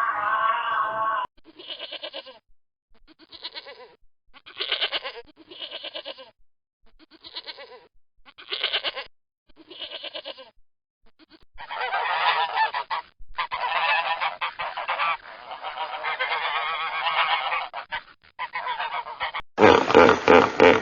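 Domestic geese honking: a string of separate short honks, then from about the middle many birds honking together in a dense, overlapping chorus. Near the end it cuts to a louder, different call that pulses several times a second.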